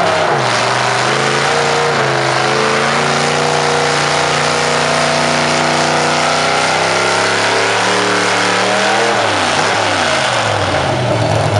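Engine of a 485-horsepower modified Massey-Harris 30 pulling tractor. The revs drop at first and then hold steady, and about nine seconds in the engine revs up sharply and runs louder.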